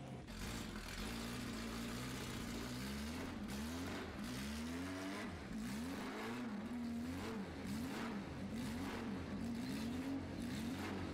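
Racing car engine revving, its pitch rising and falling again and again, with a steady rumble underneath.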